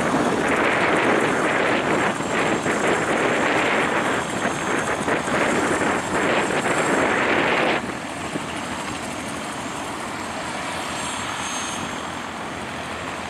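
Cessna 152's four-cylinder Lycoming engine and propeller at climb power, a steady drone fading as the aircraft climbs away. The sound drops suddenly about eight seconds in.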